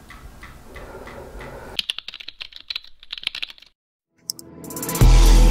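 Faint regular ticking, about two and a half a second, then a quick run of computer-keyboard typing clicks for about two seconds. A moment of silence follows, then a rising whoosh, and loud bass-heavy music cuts in near the end.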